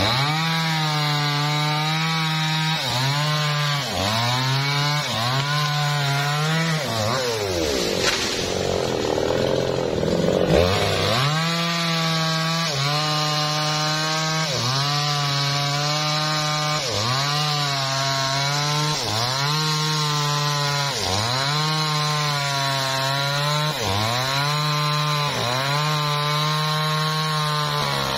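Two-stroke chainsaw cutting through a teak log at high revs. The engine pitch sags and recovers about every second and a half as the bar bites into the wood, and falls away and climbs back once about eight seconds in.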